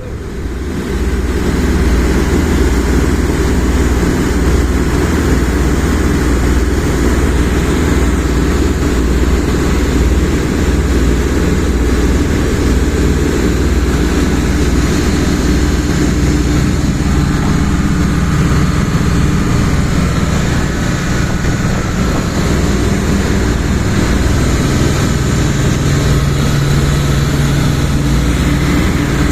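Boat engine running steadily while under way, with a constant rush of wind and water over it and a low drone that holds a steady tone in the second half.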